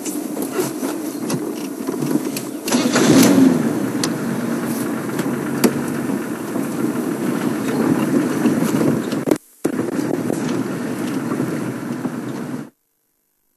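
Safari game-drive vehicle's engine running as it drives along, a steady rumble that swells briefly about three seconds in. The sound drops out for a moment late on and cuts off suddenly near the end.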